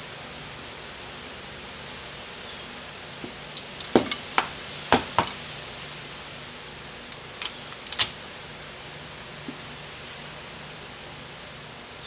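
Parts of a Chrysler 727 transmission valve body being handled during disassembly: a cluster of sharp clicks and taps about four to five seconds in, and two more near eight seconds, over a steady hiss.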